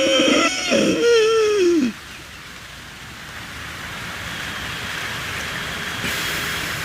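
A wavering musical tone ends in a falling glide about two seconds in. Then comes a long hissing breath drawn through a narrowed throat in ujjayi pranayama, the snore-like throat sound of the practice, growing slowly louder over about four seconds.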